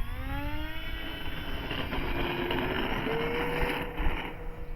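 Electric brushless motor and propeller of a 1.5 m FMS Cessna 182 RC plane powering up for takeoff: a whine that rises in pitch over the first second or so, then holds steady with a further step up about three seconds in. Wind rumbles on the microphone underneath.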